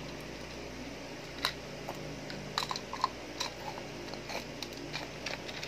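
Small, irregular plastic and metal clicks and taps from a plastic precision screwdriver set as its bits and driver are handled and sorted through.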